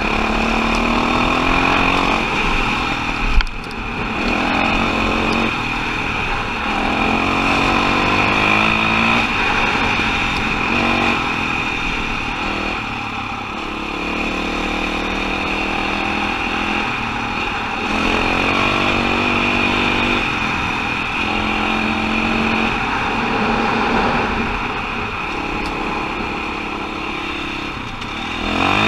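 KTM 525 XCW single-cylinder four-stroke dirt bike engine running under way, its revs rising and falling again and again with throttle and gear changes. A sharp knock comes about three and a half seconds in.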